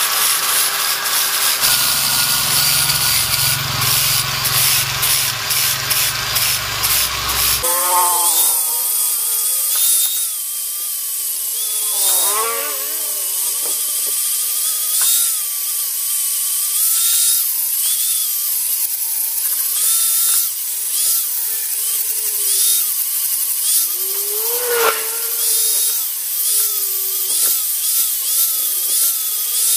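Angle grinder with a sanding disc grinding down one blade of a three-blade boat propeller, taking metal off the heaviest blade to balance it. A continuous grinding; after several seconds the low rumble drops away and the motor's whine wavers up and down in pitch.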